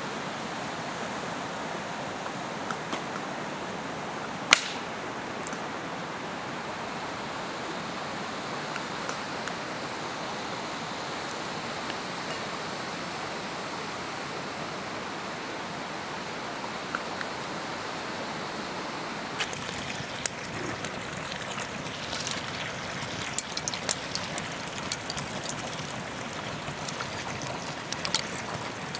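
Steady rush of running water, with a single sharp click about four and a half seconds in. From about twenty seconds in, irregular crackling and popping from the wood cooking fire and the ghee heating in the wok joins it.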